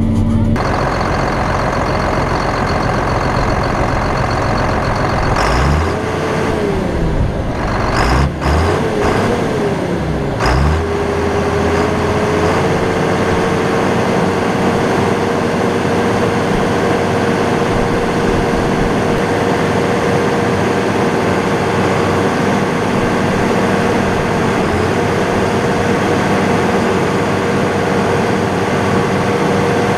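John Deere 7800 tractor's six-cylinder turbo diesel running, heard inside the cab. Its engine speed rises and falls a few times between about six and eleven seconds in, with a couple of knocks, then holds steady with an even high note over the engine.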